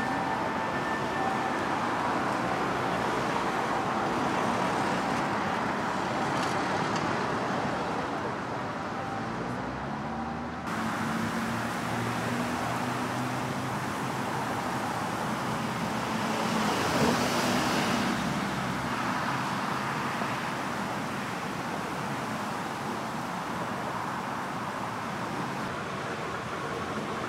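Steady urban road traffic noise, with a vehicle's engine hum growing and passing by about two-thirds of the way through.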